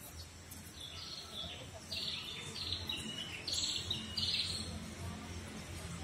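Birds chirping: a series of short, high calls about a second in through the middle, over a steady low background noise.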